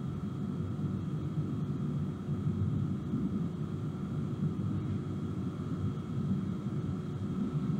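Thermwood 5-axis CNC router running, its gantry axes driven by Siemens 1FT5 servo motors: a steady low hum with a few faint, steady higher tones above it.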